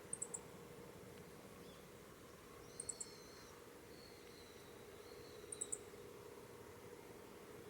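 Meadow bunting giving its short, sharp call notes: three quick high chips in a burst, repeated three times about two and a half seconds apart. A fainter, thinner bird call is heard between the bursts.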